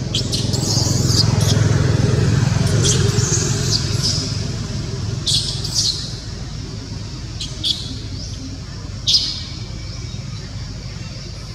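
A low engine rumble from a passing vehicle swells over the first few seconds and then fades. Short high-pitched squeaks or chirps come every second or two above it.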